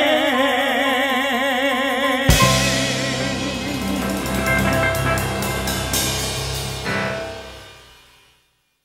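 Final bars of a gospel song: a female singer holds the last note with a wide vibrato, then about two seconds in the band hits the closing chord with a cymbal crash. The chord rings, gets a last accent near the end, and fades out.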